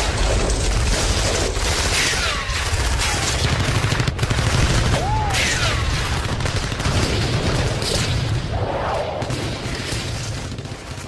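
Battlefield sound effect: dense rifle and machine-gun fire over a heavy rumble of explosions, with a few falling whistles like incoming shells. It fades out near the end.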